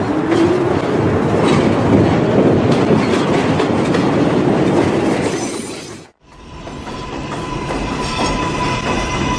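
Subway train running fast over rail joints, with clickety-clack and some wheel squeal. The sound cuts off abruptly about six seconds in, and a steady high whine of a train takes over.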